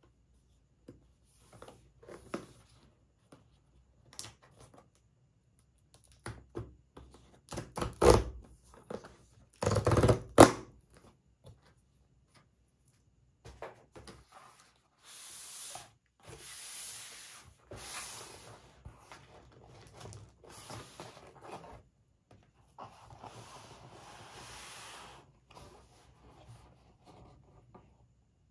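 Cardboard mailer box being handled and opened by hand: two loud thunks about eight and ten seconds in, then stretches of rubbing and tearing cardboard as the flap and tear strip are pulled open.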